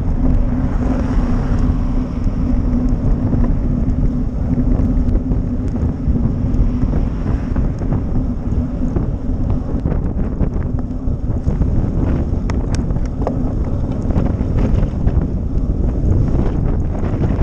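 Wind buffeting the microphone of a camera moving along a wet road, a steady rushing noise with a low hum through the first half and scattered small clicks and rattles in the second half.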